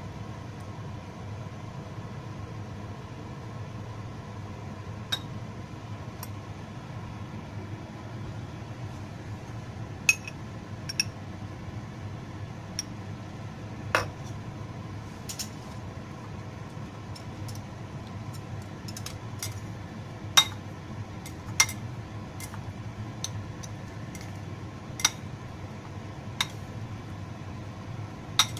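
A spoon and chopsticks clinking and tapping against ceramic bowls while meat sauce is spooned onto noodles and stirred in: a dozen or so sharp, irregular clinks over a steady low hum.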